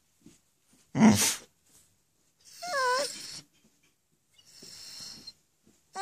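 Dog vocalising in a 'talking' way, demanding to be let past: a loud short huff about a second in, a brief wavering whine around three seconds, then a softer breathy huff near the end.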